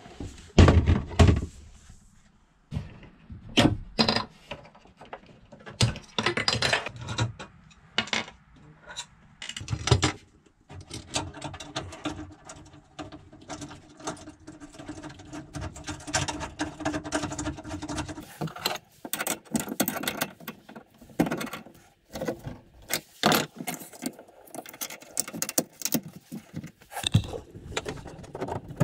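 Hands-on installation handling of a power inverter: irregular clicks, knocks and metallic clinks as battery-cable terminals are fitted to its posts and parts are set down and tightened. A low steady hum runs for several seconds midway.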